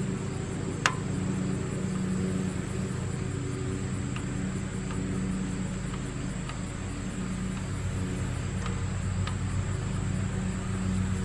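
A motor running with a steady low hum. Over it come a few sharp clicks and taps, the loudest about a second in.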